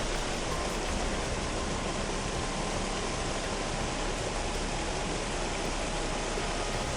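Steady, even rush of water with no distinct events.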